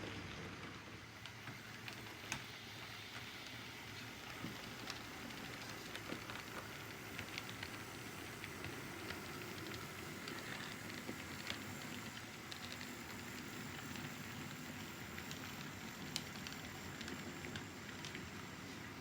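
Model train running on the layout's track: a steady rolling whir with scattered light clicks.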